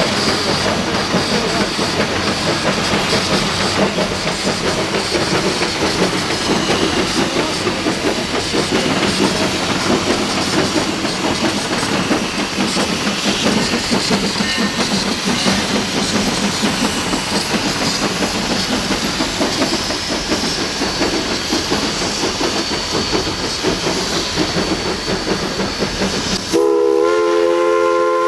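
Small steam locomotive running by with its train of open passenger cars: a steady rush of steam and rolling wheel noise. About a second and a half before the end its steam whistle blows, several tones sounding together.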